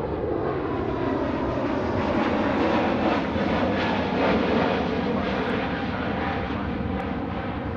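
Airbus A320-family jet's twin turbofan engines at takeoff thrust as the airliner climbs out steeply overhead after departure. The steady engine noise carries a slowly falling whine, grows loudest about halfway through, then fades as the jet moves away.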